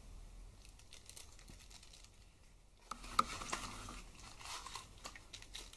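Faint packaging handling: a small plastic bag crinkling in the fingers, then a light knock about three seconds in and louder rustling as a foam insert is pulled out of a small cardboard box.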